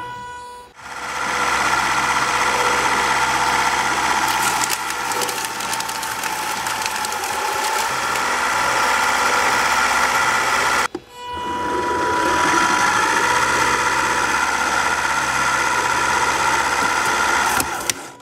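3D-printed shredder driven by an electric motor through a 3D-printed gearbox, running with a steady whine. It cuts out briefly just after the start and again about eleven seconds in, starting up again each time. Around four to six seconds in there is crackling and snapping, as material is chewed between the printed cutters.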